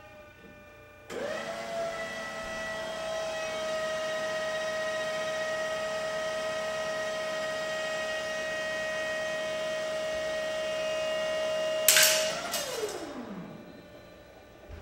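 Electric drive motor of a fishing-rod-blank flex test rig starts about a second in and runs with a steady high whine as the arm flexes the blank. Near the end there is a loud, brief clatter, and then the motor winds down in a falling whine.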